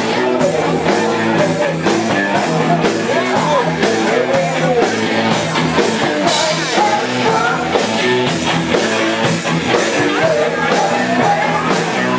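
Live rock band playing with a singer over a steady drum beat and electric guitar.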